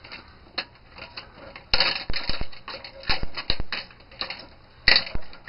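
Irregular clicks and rattles of a television circuit board being handled and wiggled while still wired to the picture tube, with sharper knocks about two seconds in and near the end.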